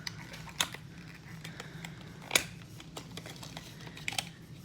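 Scattered light clicks and taps from handling a small collectible figure and its packaging, the sharpest about half a second, two and a half and four seconds in, over a faint steady hum.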